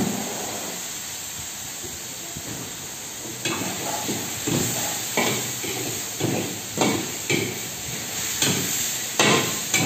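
A long-handled metal ladle stirring and scraping around a large steel wok on a gas burner, about two strokes a second from a few seconds in. Underneath is a steady hiss from the steaming wok and the burner.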